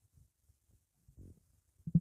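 Stomach growling: faint, scattered low gurgles, a short louder gurgle a little past halfway, then a loud run of rapid gurgling pops starting just before the end.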